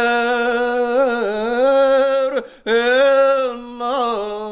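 A single voice singing unaccompanied in long, slowly held notes that bend gently in pitch, with a short break for breath about two and a half seconds in.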